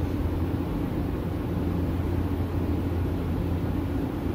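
A steady, low machine drone that runs without change, with no clear source named.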